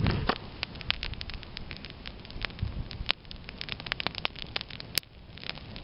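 Small campfire of dry twigs and grass crackling, with many sharp, irregular pops.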